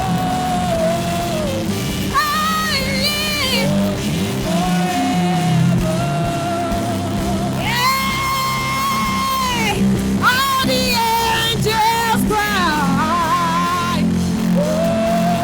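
Live gospel worship music: a band plays under a lead singer's sung ad-lib phrases with wavering pitch, including one long held note about halfway through.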